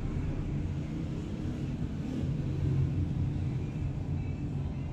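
Steady low background rumble with no distinct strokes or tones.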